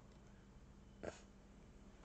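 Near silence: room tone, with one brief, soft noise about a second in.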